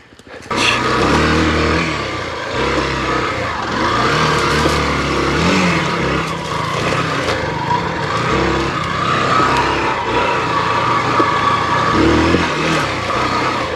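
Hero XPulse 200's single-cylinder four-stroke engine running on a rough trail, the revs rising and falling again and again as the throttle is worked. It comes in about half a second in.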